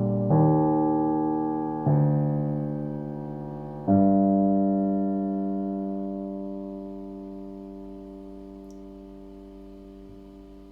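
Solo piano playing the closing chords of a slow song: three chords struck about two seconds apart, the last one held and left to ring, fading away slowly over several seconds as the piece ends.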